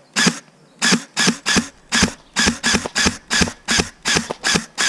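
Quick footsteps crunching on dry ground, about three steps a second.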